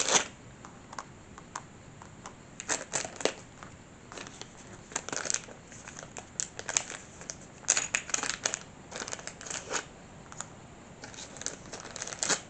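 Small clear plastic bags crinkling in the hands in short, irregular spells as they are opened and the plastic clutch parts taken out, with a few light taps.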